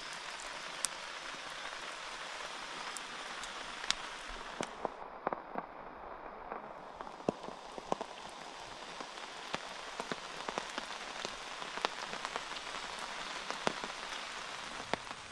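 Steady rain falling, with many sharp drops ticking irregularly on a nearby surface.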